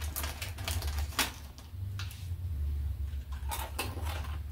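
Japanese peanuts being chewed: scattered sharp crunches and clicks, a cluster at the start, one about a second in and a few more near the end, over a steady low hum.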